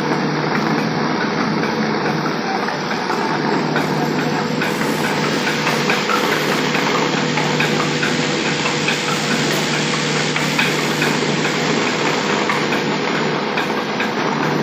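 Electric-motor-driven village grain mill running steadily under load: a constant machine hum with a dense, even rushing and fine crackle, with no breaks or changes.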